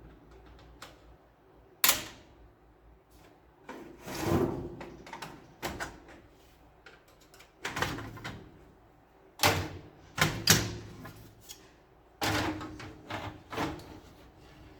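Printer parts being handled: irregular sharp knocks and clicks with short scraping slides, about a dozen over the stretch, bunched around four seconds in and again between seven and fourteen seconds in.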